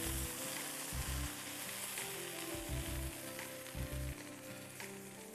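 Jollof rice with vegetables sizzling in a hot frying pan as it is stirred and turned with a silicone spatula, with soft irregular knocks of the spatula against the pan.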